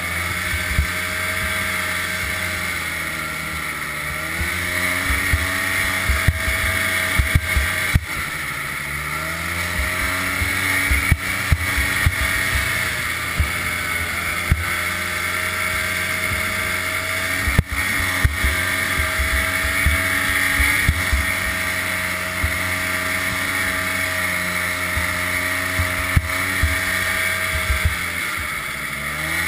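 1988 Ski-Doo 250 snowmobile engine running under way on a trail. Its pitch drops and climbs again several times as the throttle is eased and reapplied, with frequent short sharp knocks over it.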